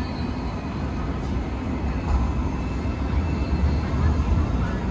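Steady low rumble of vehicles on a city street.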